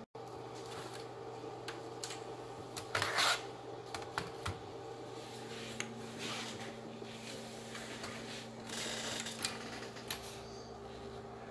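Plastic laptop case parts being handled and fitted together during reassembly: scattered clicks, taps and scraping, the busiest stretches about three seconds in and near the nine-second mark, over a steady electrical hum.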